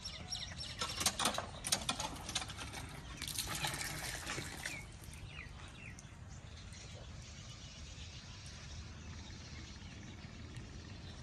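Water from a hand pump pouring and splashing as a cup is filled, in two spells over the first five seconds. After that it is quieter, with a few birds chirping.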